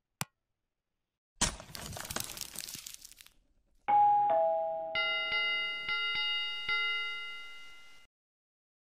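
End-screen sound effects: a single click, then a short crackling swoosh, then a falling two-note doorbell-style "ding-dong" chime, followed by a few strikes of a ringing notification bell that fade out.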